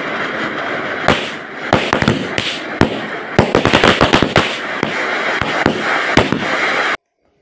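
An anar (flower-pot fountain firework) hissing steadily as it sprays sparks, while the ring of small bijli bomb firecrackers around it goes off in sharp bangs. A few scattered cracks come about a second in, a dense rapid crackle fills the middle, fewer pops follow, and the sound cuts off abruptly near the end.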